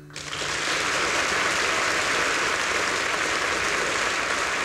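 Audience applause, breaking out just after the start and holding steady.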